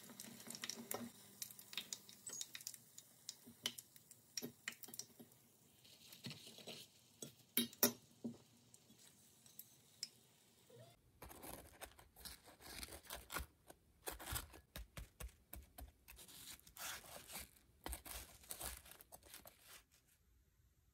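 Shrimp-stuffed shiitake tempura in a small saucepan of hot oil, sizzling faintly, with light clicks of chopsticks as pieces are lifted out. From about halfway on, paper towel crinkles and rustles in short irregular bursts as the crisp tempura is handled on the plate.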